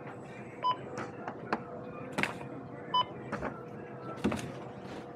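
Self-checkout barcode scanner beeping twice, about two seconds apart, as items are scanned, among a few sharp knocks of goods being handled and set down. A steady hum runs underneath.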